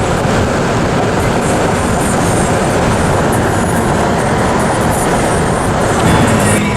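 Loud, steady rushing rumble of a moving vehicle, with no breaks or separate impacts.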